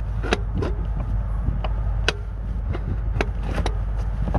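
Sharp clicks and knocks of hand tools and plastic parts being handled while a pressure switch is fitted, about five in all, over a steady low rumble from the truck's running engine.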